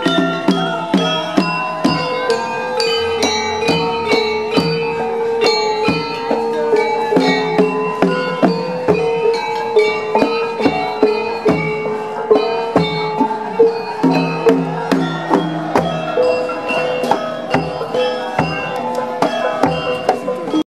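Javanese gamelan played while carried in procession: bronze gong-kettles and metallophones struck in a brisk, steady rhythm with ringing tones, over deep beats about once a second.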